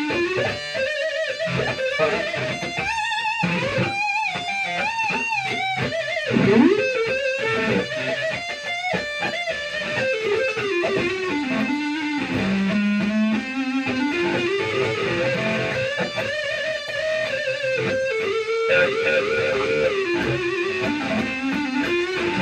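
Firefly FFLV Flying V electric guitar playing a single-note lead melody, with held notes shaken by vibrato and bent up and down in pitch.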